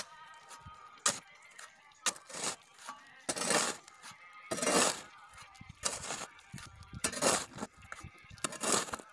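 Steel shovel scooping and turning a dry mix of gravel, sand and cement: gritty scrapes with stones rattling and clinking, about one stroke a second. Two sharp clicks come in the first two seconds.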